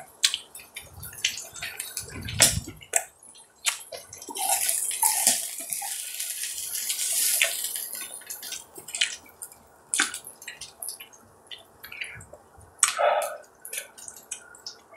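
Close-miked sounds of eating beef rib meat grilled on an iron griddle: many sharp clicks and wet chewing and mouth sounds, with a hiss like meat sizzling on the hot plate for a few seconds near the middle.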